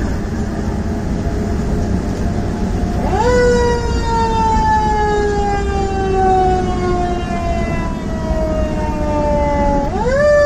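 Fire engine's mechanical Q siren, heard from inside the cab over the engine and road rumble. About three seconds in, it climbs quickly to a high wail and then slowly winds down for about seven seconds. Near the end it climbs sharply again.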